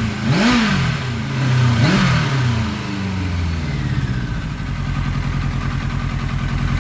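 Turbocharged 1991 Kawasaki ZXR750 inline-four engine, newly got running, blipped twice so the revs rise and fall, then settling to a steady idle.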